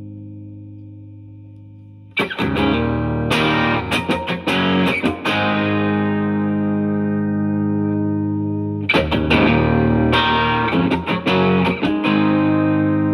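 Stratocaster-style electric guitar with three single-coil pickups, played through a Yamaha THR10C modelling amp on its Brit Blues amp model. A chord rings and fades, then a burst of strummed chords comes about two seconds in and another about nine seconds in, each left to ring out.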